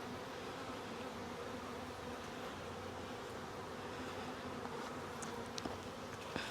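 Honeybees buzzing in a steady, even hum around an opened hive while frames are being lifted out and inspected. A few faint clicks come near the end.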